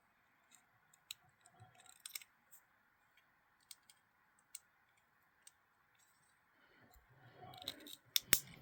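Scattered light clicks and taps of small knife parts and tools being handled while a Benchmade folding knife's pivot and washers are worked on, with a quick run of louder clicks near the end.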